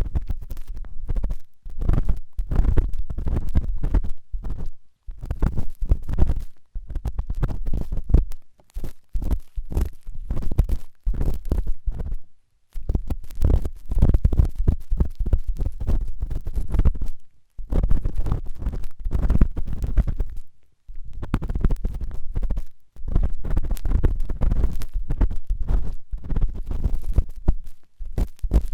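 Intense ear cleaning close to the microphone: an ear-cleaning tool scraping and rubbing hard in an ear, making loud scratchy, rumbling strokes. The strokes come in bouts of a few seconds with short pauses between them.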